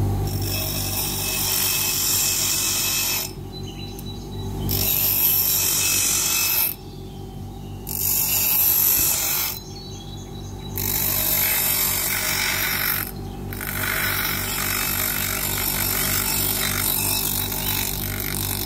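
Bench grinder motor running with a steady hum while a steel knife blank cut from a circular saw blade is ground on its wheel. The hissing grind breaks off briefly about four times as the blade leaves the wheel, then picks up again.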